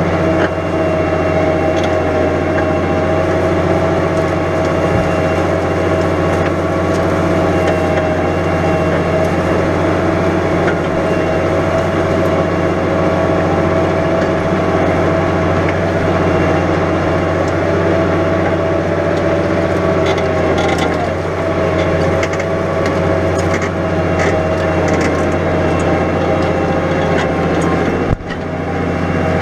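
New Holland 100.90 tractor's diesel engine running steadily under load while ploughing, with scattered sharp cracks and clicks in the second half and a brief dip in level just before the end.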